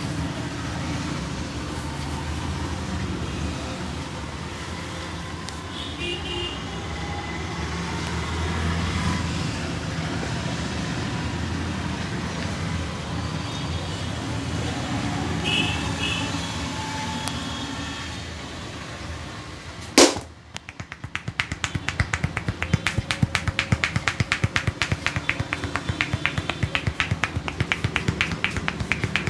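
Steady background noise with a low hum, then a single sharp click about two-thirds of the way in, followed by fast, even hand taps of a head massage, several a second.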